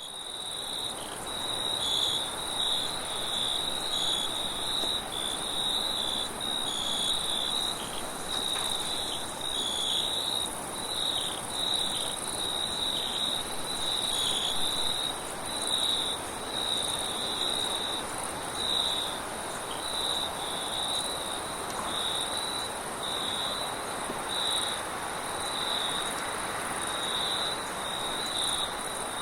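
Crickets chirping at night in a steady, pulsing chorus, with a second, higher, continuous trill above it and a soft rush of wind underneath.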